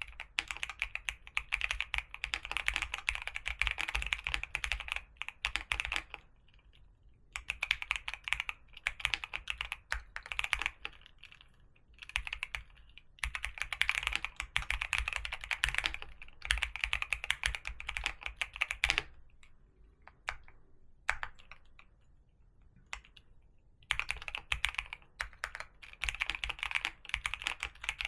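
Typing on a computer keyboard: fast runs of keystrokes, broken by short pauses and a longer stretch of only a few single key presses past the middle.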